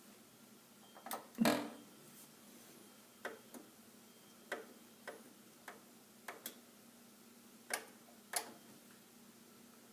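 Faint, irregularly spaced light clicks and taps, about a dozen of them, with one louder knock about a second and a half in, over a faint steady low hum.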